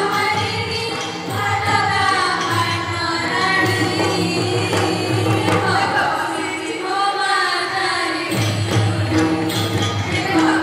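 Girls singing an Indian song into a microphone, accompanied by harmonium and several tablas.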